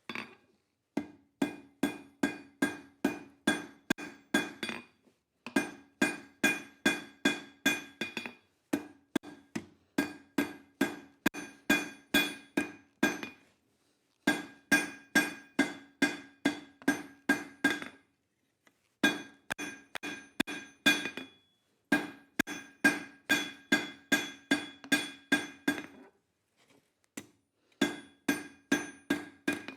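Hand hammer striking hot steel on an anvil, about three to four blows a second in runs of several seconds with short pauses, each blow leaving a bright metallic ring.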